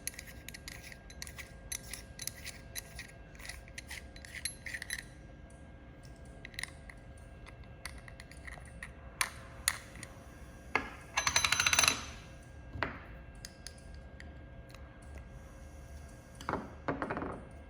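Small metal parts of a jewelry laser welder's protection-lens holder being handled: scattered light clicks and taps, with a denser rattling clink about eleven seconds in, over a faint steady hum.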